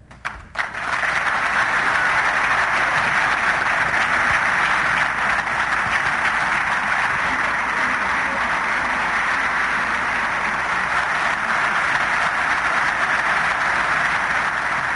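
Large audience applauding steadily, the clapping swelling in about a second in.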